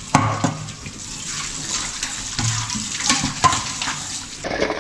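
Tap water running into a stainless steel kitchen sink while dishes are rinsed under the stream, with a few knocks of metal dishware against each other.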